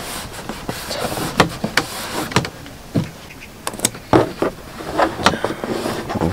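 Hands rubbing stickers down onto a hard plastic 10-litre water carrier: fingers scrape and rub over the plastic, with scattered sharp clicks and taps as the container is gripped and handled.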